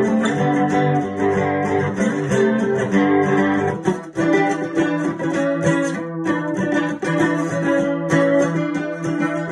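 Ibanez cutaway acoustic guitar played with quick plucked chords. About four seconds in the low bass notes drop out and the playing moves higher.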